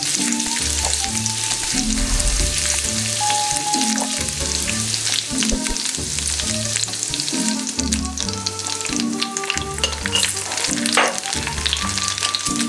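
Butter and garlic frying in a stainless steel pan, sizzling with a steady crackle while a silicone spatula stirs it. Soft background music with a steady low beat plays underneath.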